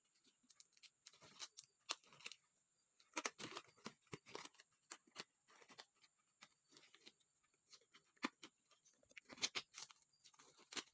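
Medical gloves being pulled on by hand: faint, irregular crackling and rustling of the glove material.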